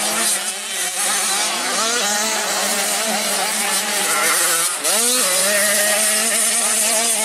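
Small 65cc two-stroke motocross bike engines revving up and down as the bikes ride the track, with one sharp rev climbing in pitch just before five seconds in, over a steady lower engine drone.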